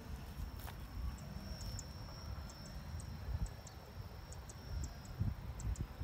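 Open-air ambience: wind rumbling on the microphone, with insects giving a thin steady high whine and short high chirps scattered through it.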